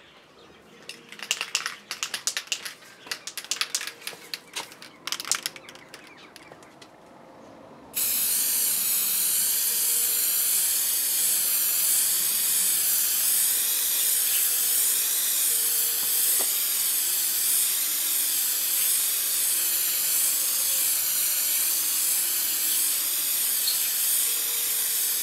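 Aerosol can of Halfords light grey primer rattling as it is shaken for a few seconds, then sprayed in one long, steady hiss that starts about a third of the way in and keeps going.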